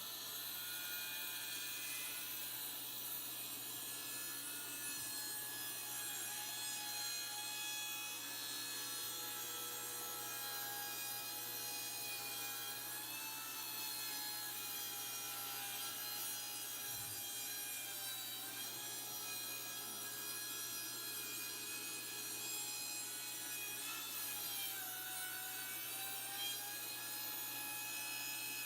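Old Craftsman table saw running and cutting wood. The motor's steady whine sags in pitch a few times as the blade takes load.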